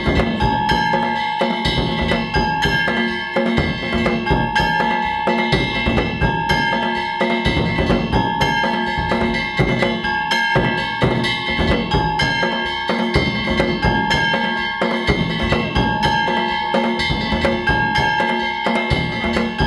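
Danjiri bayashi, the festival music of a danjiri float: taiko drums beaten in a fast, dense rhythm, with small hand gongs ringing in a pattern that repeats about once a second.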